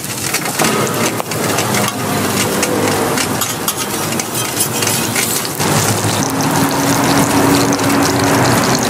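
Hotteok (Korean sweet pancakes) frying in shallow oil on a flat steel griddle, sizzling steadily with constant crackling.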